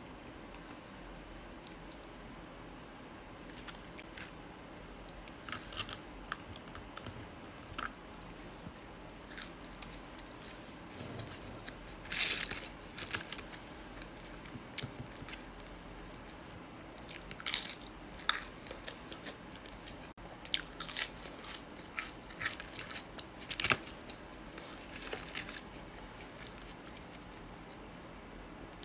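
A person eating McDonald's food close to the microphone: bites and chewing in irregular clusters of short, sharp sounds, loudest about halfway through and again around three-quarters through.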